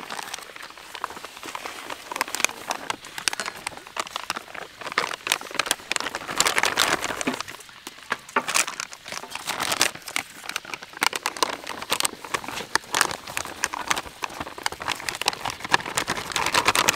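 Plastic flour packets crinkling and crackling as they are torn open, squeezed and emptied into a steel bowl.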